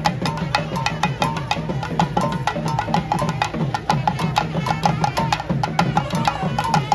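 Chenda drums beaten with sticks in a fast, continuous run of sharp strokes, the driving percussion of Kerala temple ritual music.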